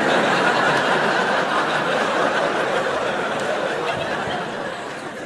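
Audience laughing at a stand-up punchline, a dense crowd laugh that starts at once and slowly dies away near the end.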